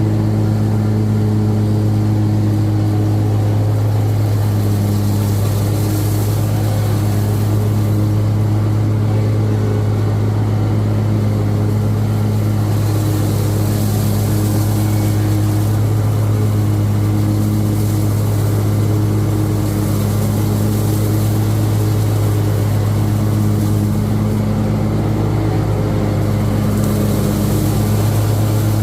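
Riding lawnmower engine running at a steady speed with the blades engaged, cutting weeds and briars: a constant low drone that holds the same pitch throughout.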